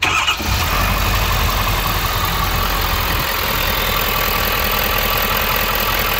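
Ford 6.7 L Power Stroke V8 turbodiesel starting up and settling into a steady idle. This is its first start after fuel-system work, with a new filter added to the high-pressure pump's supply.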